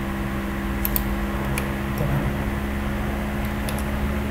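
Steady mechanical hum with a low drone, and a few faint computer mouse clicks about a second in, again shortly after, and near the end.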